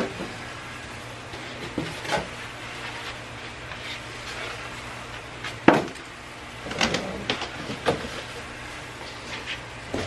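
Cardboard packing box and styrofoam packing being handled and pulled off a large boxed copier: scattered scrapes and rustles of cardboard with knocks. The loudest is a sharp knock a little past halfway, followed by a quick run of scrapes and taps.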